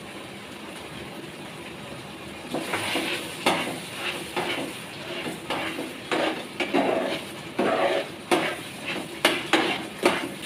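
Metal spatula stirring and scraping a thick chhana-and-milk sandesh mixture around a frying pan on a gas stove. The strokes are irregular, starting a couple of seconds in, with a few sharp clicks of the spatula against the pan. It is the continuous stirring the mixture needs as it cooks down.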